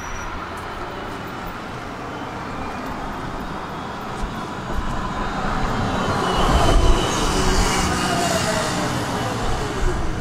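A GVB Combino tram pulling into a stop: running noise of its wheels on the rails builds up, loudest about seven seconds in as it comes alongside. Then an electric whine falls steadily in pitch as it brakes to a halt near the end.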